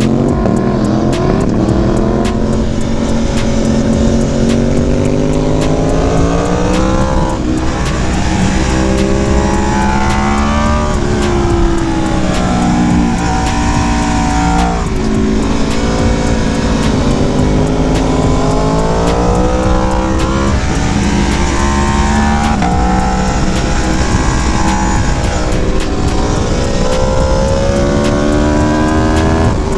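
Aprilia sport motorcycle engine heard on board while riding, its pitch climbing and then dropping again about every three to seven seconds as the throttle is worked, over a steady rush of wind.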